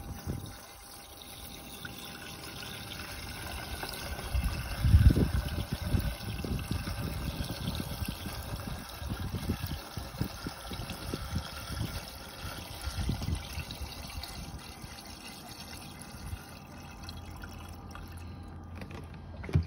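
Windshield washer fluid pouring in a steady stream from a plastic jug into a car's washer-fluid reservoir filler neck, filling the reservoir. Uneven low pulses run under the pour from about four seconds in, loudest around five seconds.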